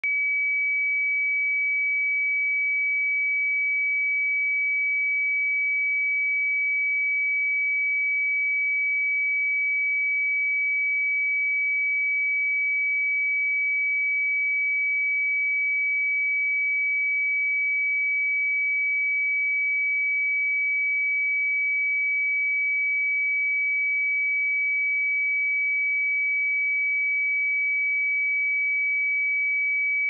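Pure 2282 Hz sine-wave test tone, held steady at one pitch and level.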